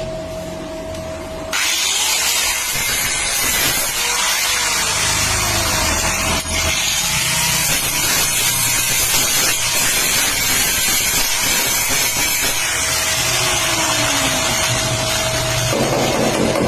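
A body-shop tool working on a car body panel gives a loud, steady hiss that starts suddenly about a second and a half in, over background music.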